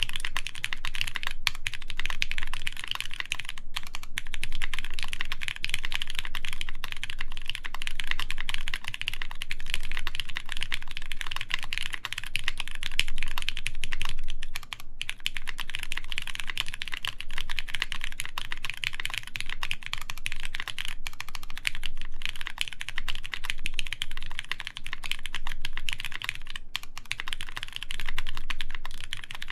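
Continuous fast typing on a Keycult No. 2 Rev. 2 mechanical keyboard with lubed Cherry MX Brown switches, an aluminum plate and GMK keycaps: a dense stream of key presses and keycap clacks, with brief lulls about halfway through and near the end.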